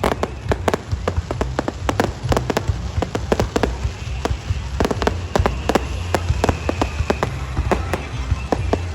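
Fireworks display going off: dense, irregular crackling pops over a continuous low rumble of bursts.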